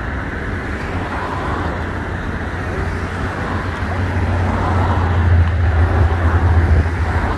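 Road traffic at a busy street junction, with a car passing close by; its engine and tyre rumble swell over the second half of the clip.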